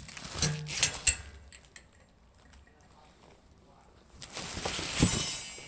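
Handling noise: a few light knocks and clicks in the first second, then a rising scraping rustle with a dull thump near the end.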